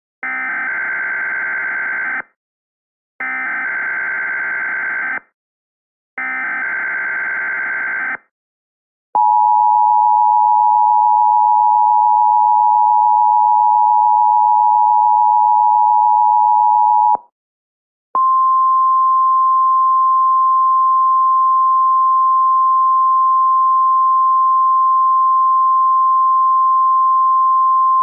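Emergency Alert System tones: three SAME header data bursts, harsh buzzing digital screeches about two seconds each with a second's gap between them. Then comes the two-tone EAS attention signal (853 and 960 Hz together), held steady for about eight seconds. After a second's break, a single steady 1050 Hz National Weather Service warning tone runs for about ten seconds.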